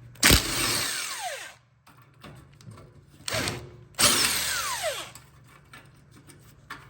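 Impact gun hammering on an exhaust mid-pipe nut: two bursts with a short one between. Each long burst ends in a falling whine as the motor spins down.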